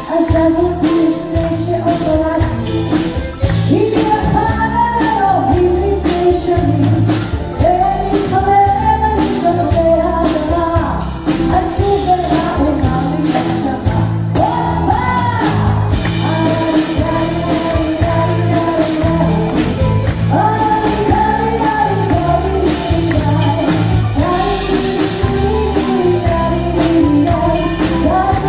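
A female vocalist singing live into a microphone, backed by a band of keyboard, electric guitar and drum kit playing a steady beat.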